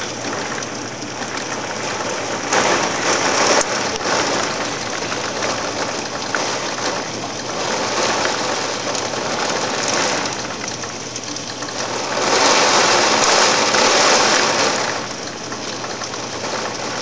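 Heavy rain from a hurricane's rain band pouring down steadily, swelling louder about two and a half seconds in and again for a few seconds past the middle.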